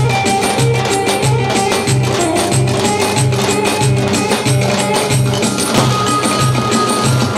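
Turkish folk dance music played loud, with a davul drum keeping a steady beat a little under two strokes a second under a busy melody and percussion.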